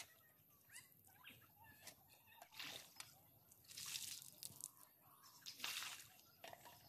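Water poured out of a metal bucket drawn from a well, splashing onto the concrete well platform in three short bursts through the middle and later part.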